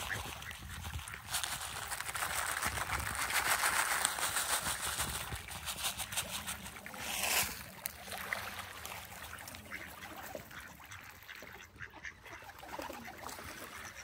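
Mallard ducks quacking and splashing on the water as they scramble for scattered feed, with one louder splash about seven seconds in.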